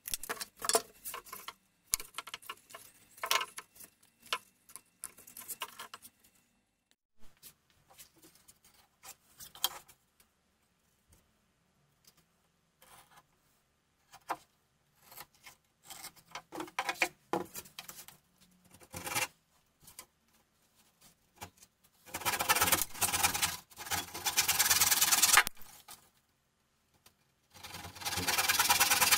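Handsaw cutting a thin board by hand. Scattered scrapes and knocks come first as the board is handled, then two runs of quick back-and-forth saw strokes: one of about three seconds, and a shorter one near the end.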